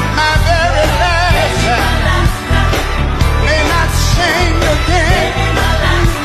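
Gospel group and band playing, with a singer's wavering, drawn-out vocal runs over the full band and a heavy bass.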